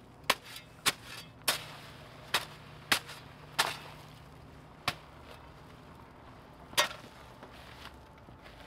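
A hand tool striking and chopping into the concrete and fill around a gate post being set: about eight sharp, irregular knocks, with a faint steady hum under the first half.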